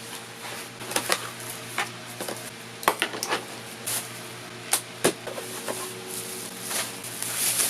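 Scattered small clicks and knocks of a phantom power supply and its packaging being handled and unpacked, over a faint steady hum.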